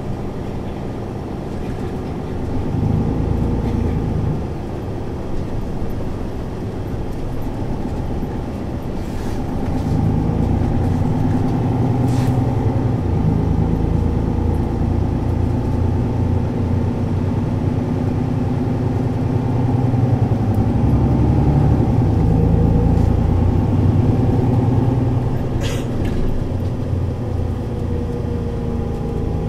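Mercedes-Benz O 530 Citaro city bus standing with its engine running, a steady low engine note that swells louder twice and then settles back. Three short hisses can be heard along the way.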